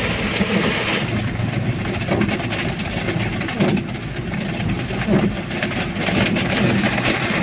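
Heavy rain driven by strong wind, heard from inside a car with the window open a little: a dense patter of drops over a steady low engine hum.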